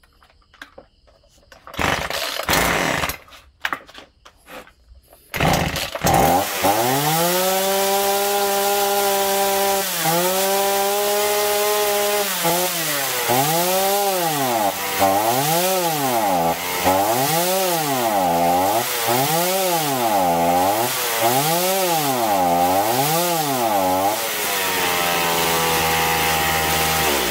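Two-stroke chainsaw pull-started with a few pulls, catching about six seconds in and running. Its revs then rise and sag over and over, about once a second, the surging ('woob woob') that the owner says keeps it from accelerating and that he expects to cure by cleaning the carburetor; near the end it settles to a lower steady idle.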